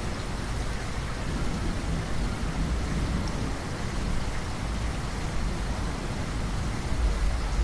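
Heavy rain falling steadily, with a low rumble of thunder underneath that grows stronger near the end.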